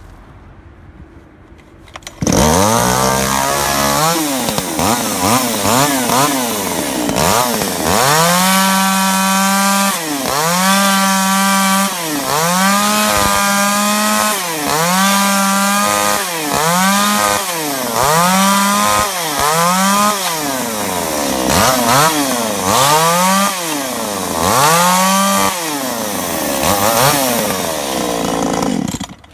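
Makita ME333 33cc two-stroke chainsaw comes in suddenly about two seconds in, then is revved up and down about once every second and a half as it cuts through pallet wood, its chain cutting poorly (the owner says it was dull). The engine cuts off abruptly near the end.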